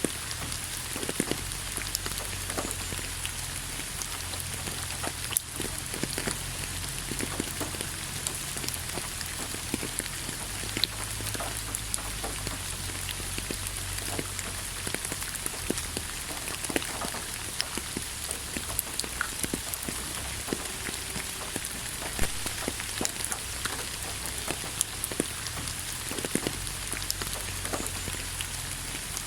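Steady rain falling, an even hiss dotted with many sharp ticks of single drops striking, over a low steady rumble.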